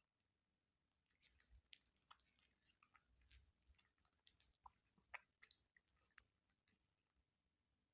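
Faint chewing and crunching of food: quick, irregular crisp clicks of bites and chews, starting about a second in.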